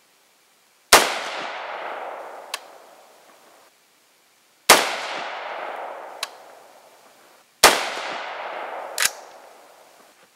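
AR-15 carbine with a 14.5-inch barrel firing .223 Remington 55-grain steel-case rounds: three single shots, about four and then three seconds apart, each echoing away over two to three seconds. A lighter, sharp click follows each shot about a second and a half later.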